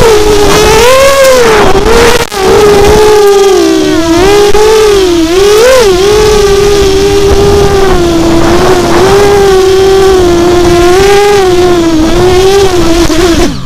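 FPV racing quadcopter's motors and propellers whining close to the onboard camera, the pitch wavering up and down with the throttle, with a brief dip about two seconds in. The whine cuts off suddenly at the end.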